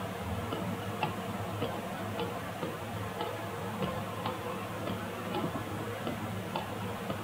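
Faint, irregularly spaced light clicks and ticks, about one or two a second, over a steady low hum.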